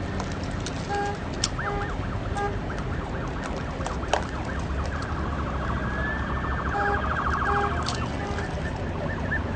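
Electronic warning tones over a steady low rumble of traffic and engines: short pitched beeps repeating a few times, and a rapid warbling tone for about three seconds in the middle.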